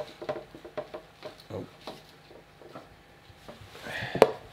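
Small knocks and clicks of things being handled, then a sharp plastic clack about four seconds in as a plastic dustpan is taken down.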